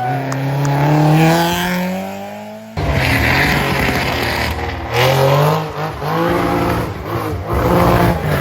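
Rally car engine accelerating hard, its pitch climbing steadily. About three seconds in, the sound cuts abruptly to another rally car that revs up and drops back several times as it works through the stage.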